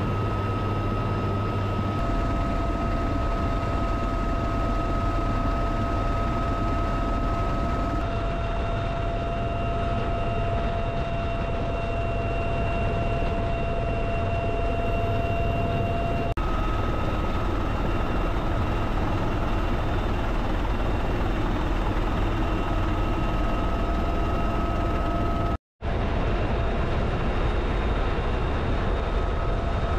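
Cabin noise of a UH-1Y Venom helicopter: its twin turboshaft engines and four-blade rotor run steadily as a loud low drone under a steady high whine. The sound shifts slightly at a few edits, and there is a brief gap of silence about three-quarters of the way through.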